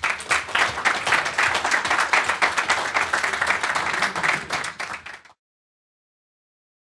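Audience applauding, a dense steady clapping that cuts off abruptly about five seconds in.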